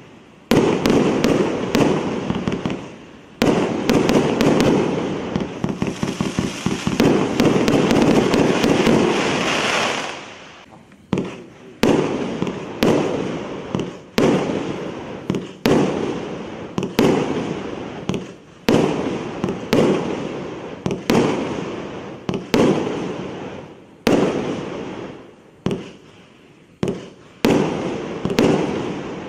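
A 1.25-inch, 348-shot fireworks cake firing. For about the first ten seconds it is a dense rapid volley of shots. After that single shots go off roughly one a second, each a sharp bang that fades away.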